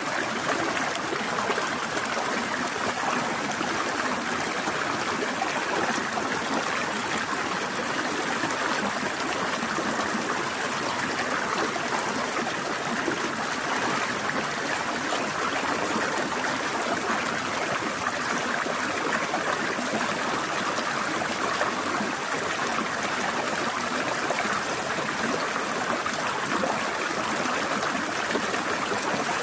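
A forest stream flowing and trickling steadily over rocks, an even rushing and babbling of water with no change in level.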